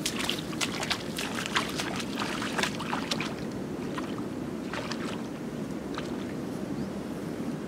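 Footsteps crackling through grass and reeds, then wading and sloshing in shallow muddy pond water, over a steady low rumble. The crackling strokes are thickest in the first three seconds or so and thin out as she gets into the water.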